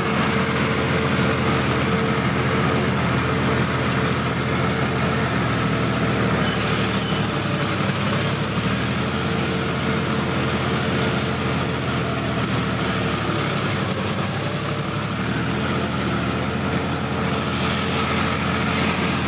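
Sonalika DI-50 RX tractor's diesel engine running at a steady low speed, heard close up from the driver's seat as the tractor moves slowly along.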